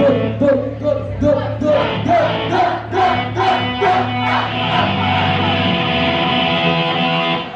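Live rock band: a run of hard-hit chords on electric guitars and drums, then one chord held steadily that cuts off abruptly near the end, like the close of a song.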